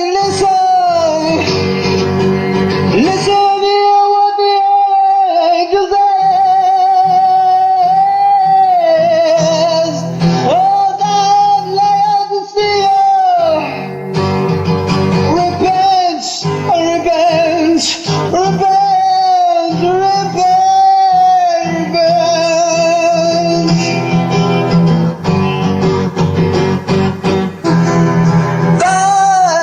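A song: a singing voice holding long notes with vibrato over guitar accompaniment.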